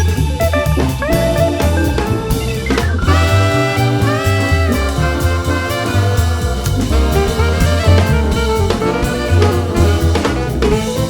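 Background music: upbeat jazz with a steady drum-kit beat and horn lines.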